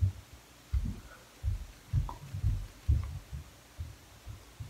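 A series of dull, low thumps at uneven spacing, roughly two a second, with a few faint ticks.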